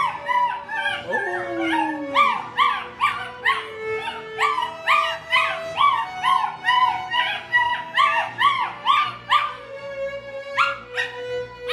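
Standard poodle puppy howling along to a violin, in quick rising-and-falling yips about two to three a second, over long held violin notes; the cries thin out near the end.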